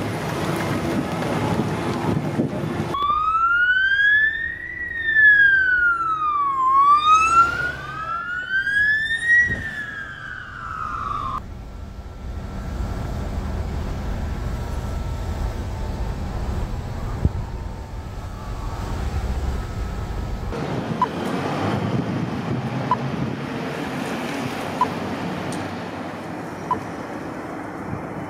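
A fire truck siren in wail mode, its pitch sliding slowly up and down twice, with a second siren overlapping briefly. Before it comes a short stretch of wind noise. After it comes a low, steady road rumble as heard from inside a car, then street traffic noise with short ticks about every two seconds.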